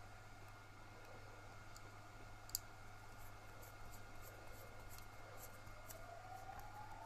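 Faint, scattered clicks and taps of small metal screws and a wooden grip panel being handled and fitted on a 1911 pistol frame, with one sharper click about two and a half seconds in, over a steady low hum.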